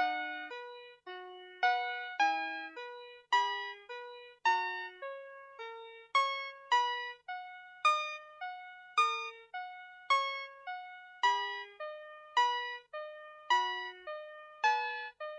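VTech Schlummerschnuffi plush toy playing one of its built-in classical melodies through its small speaker: simple electronic piano-like notes, each struck and fading, about two a second.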